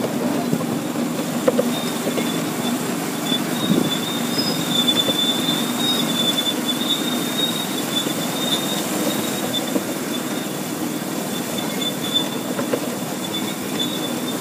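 Miniature railway train running on curving track, heard from aboard: a steady rumble of wheels on the rails with a high-pitched, wavering wheel squeal through much of the ride.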